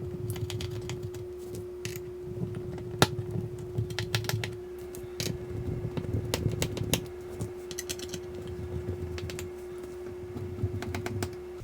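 Irregular small clicks and taps of a precision screwdriver and tiny screws against a MacBook Air's aluminium bottom case, over a steady faint hum.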